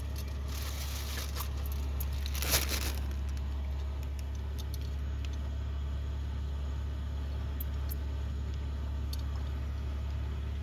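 Wrapping being pulled off a ceiling fan motor and handled, crinkling and rustling in bursts over the first few seconds with the loudest crackle about two and a half seconds in, then quieter handling noises. A steady low hum runs underneath.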